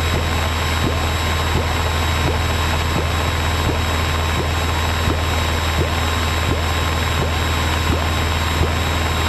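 Piper PA-28's piston engine and propeller running steadily at cruise power: a constant low drone heard inside the cockpit in flight.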